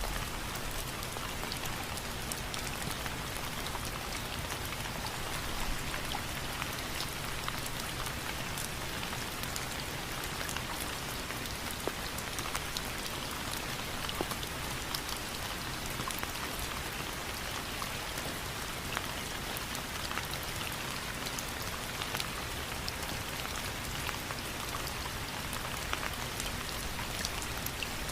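Steady rain falling, with individual drops pattering and ticking on a surface.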